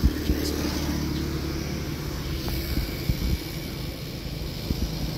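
Steady low hum of a motor vehicle's engine running, with a few short knocks.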